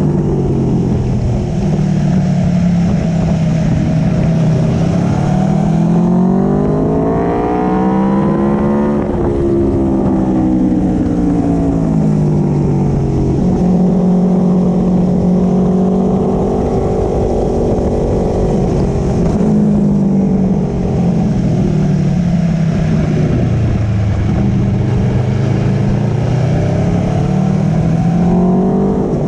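Aprilia Tuono V4 Factory's V4 engine heard through an Akrapovic slip-on exhaust from on board while riding, its pitch rising and falling with the revs. It climbs sharply about a quarter of the way in, holds steady through the middle, then dips and climbs again near the end.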